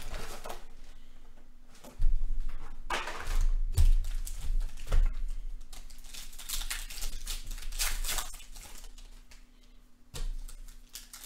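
Hands handling a cardboard trading-card box and opening a pack: rustling and crinkling of cardboard and pack wrapper, with two knocks about two and four seconds in.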